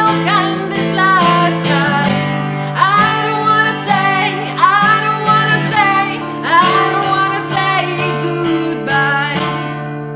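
A woman singing over a strummed acoustic guitar. Near the end the voice stops and the guitar carries on alone.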